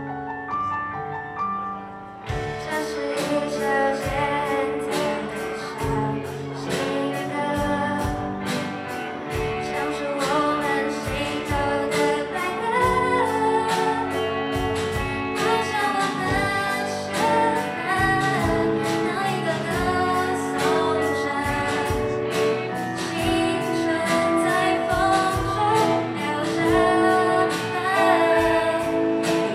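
Live rock band playing a pop song: a quiet keyboard passage, then drums, electric guitars and bass come in about two seconds in, with a woman singing over them.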